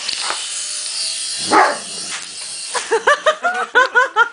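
A small electric toy helicopter's rotors whirring steadily, with a dog barking once loudly about halfway through. Near the end a quick run of short high-pitched calls, about five a second, takes over.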